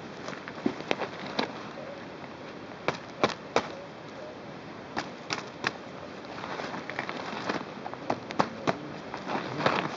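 Wood campfire crackling, with sharp irregular pops and cracks over a steady hiss.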